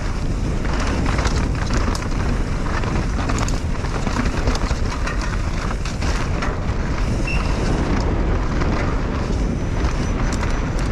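Mountain bike descending a rough dirt trail: steady wind rumble on the microphone and tyre noise, with frequent clicks, knocks and rattles from the bike over the ground.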